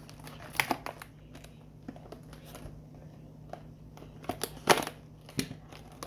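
Cardboard and plastic packaging of a cordless screwdriver being handled and opened: scattered clicks, taps and crinkles, with the loudest knock about three-quarters of the way through.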